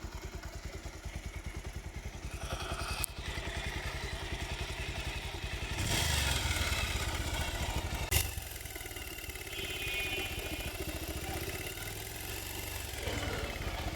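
Bajaj Pulsar UG4's single-cylinder engine running with its bad engine noise, briefly revved up about six seconds in, with a couple of sharp clicks. The mechanic is checking the noise against worn valve guides, piston rings, timing chain and balancer gear.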